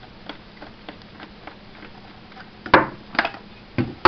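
Plastic clicks and knocks from a 9.6 V battery pack being worked out of a Nerf Vulcan EBF-25 blaster, the loudest coming in the last second and a half. Before them, faint even ticking about three times a second.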